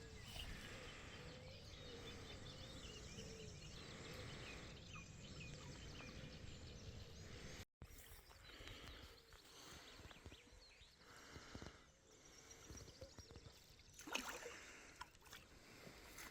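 Near silence: faint outdoor ambience with a few faint high chirps. The sound drops out completely for a moment just before eight seconds in, and there is a single click near the end.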